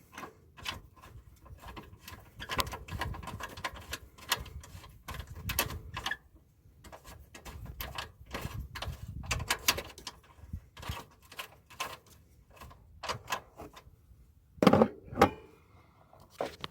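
Socket ratchet clicking in short bursts as the intake bracket bolt is worked out, among clicks and clunks of the intake parts being handled, with a couple of louder knocks near the end.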